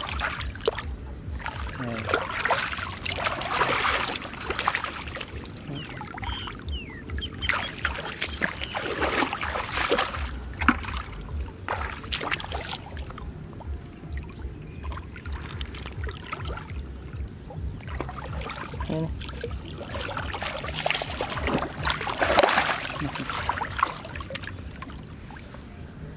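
Hands splashing and sloshing through shallow muddy water, in bursts every few seconds with quieter dribbling between, the loudest splash a few seconds before the end.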